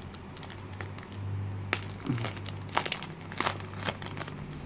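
Foil wrapper of a 2016-17 Panini Threads basketball card pack crinkling as it is handled open and the cards are slid out, in a string of sharp, irregular crackles.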